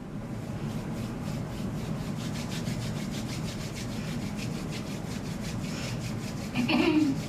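A young woman clears her throat once, briefly, near the end, over a steady scratchy background noise.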